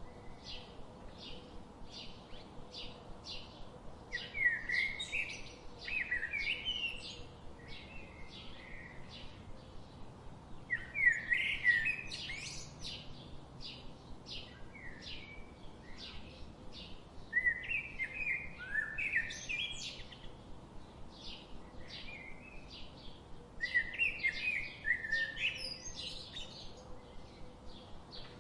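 Small songbirds chirping: a steady run of short chirps about twice a second, with louder twittering phrases breaking in four times.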